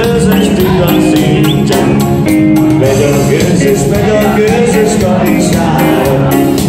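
Loud dance music with singing over a steady beat.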